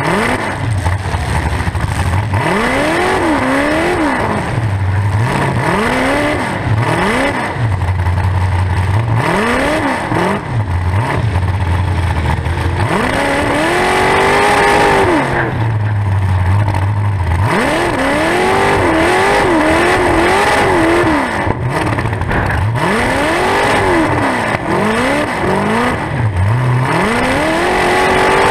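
Demolition derby car's engine, unmuffled through two open exhaust stacks standing up through the hood, revved hard again and again, its pitch climbing and falling in repeated surges with short drops back toward a low idle between them.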